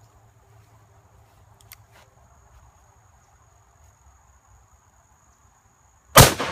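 A single shot from a Smith & Wesson 500 revolver firing .500 S&W Magnum near the end, one loud crack with a long echoing tail. Before it, only faint background with a steady high thin tone.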